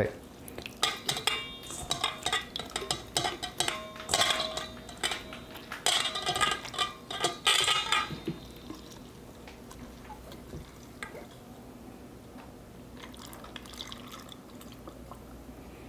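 Stainless steel mixing bowl and glass jar clinking and knocking, the bowl ringing briefly after each knock, as salted lemon quarters are scooped and packed into the jar. After about eight seconds it goes much quieter, with soft wet sounds near the end as the lemon juice is poured from the bowl into the jar.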